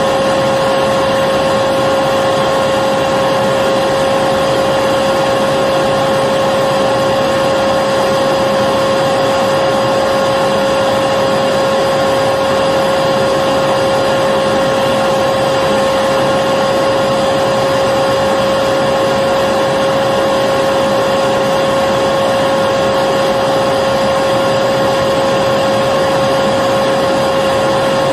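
Vacuum cleaner running steadily, an even rushing noise with a constant motor whine and no change in speed.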